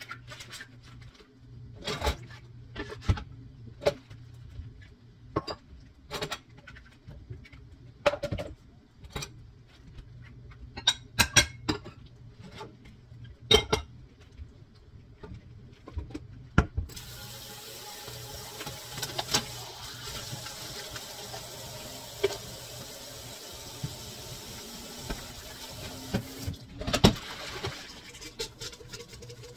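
Dishes and kitchenware clinking and knocking against each other in a string of sharp separate hits, then a tap runs water into the sink for about ten seconds and shuts off, followed by one loud knock.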